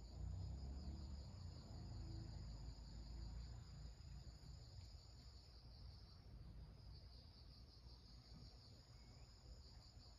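Faint, steady chirring of insects in the garden, a continuous high pulsing drone. Under it a low rumble, stronger in the first few seconds.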